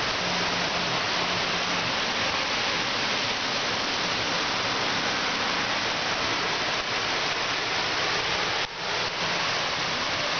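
Heavy downpour in a thunderstorm: a steady, dense hiss of rain pouring onto pavement and the balcony floor, briefly dipping about nine seconds in.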